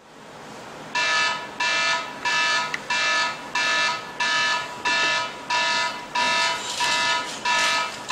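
Wake-up alarm beeping: a short pitched electronic beep repeats evenly about one and a half times a second, starting about a second in.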